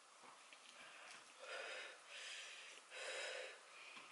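Faint heavy breathing: about three hissy breaths in quick succession, each about half a second, from someone whose mouth and throat are burning from extremely spicy noodles.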